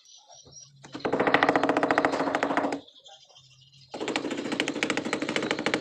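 A motorized tool or machine running in two bursts, a rapid hammering rattle of many strikes a second over a low hum, stopping for about a second between the bursts.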